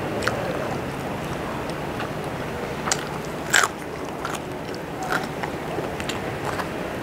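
A person chewing and biting food, with several sharp crunches or smacks; the loudest comes about three and a half seconds in.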